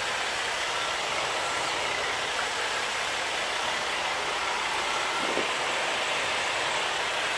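Steady hissing noise inside a semi-truck's cab as the truck moves off slowly.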